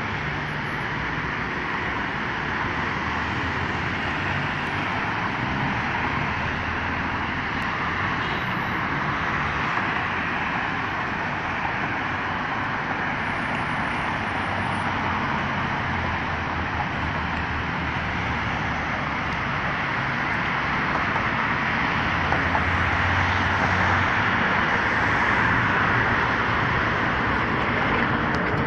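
Steady road traffic: cars and tyres passing on a multi-lane roadway, a continuous hum of noise that grows somewhat louder in the last third.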